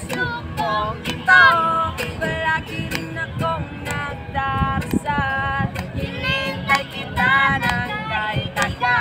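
A child singing a melodic song in a clear, high voice with wavering vibrato on held notes, over short sharp strummed or tapped accompaniment strokes.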